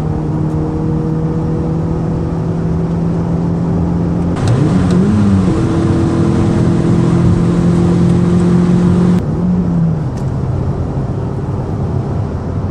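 Volkswagen Golf GTI engine running at a steady note, with a brief swing in pitch about four seconds in and again about nine seconds in. It is a little louder, with added hiss, between those two points.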